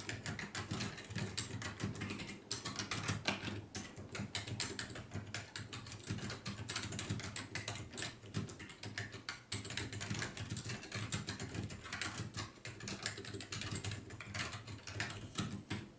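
Matias Quiet Pro mechanical keyboard with dampened ALPS switches being typed on continuously at a fast pace, a rapid, irregular stream of soft key clicks that stops suddenly at the end.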